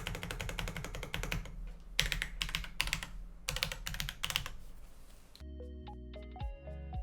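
Fast typing on a Rama Works U80A mechanical keyboard with all-POM Kailh Box Cream switches in a POM plate, in several quick bursts of keystrokes. The typing stops about five seconds in and gentle plucked background music begins.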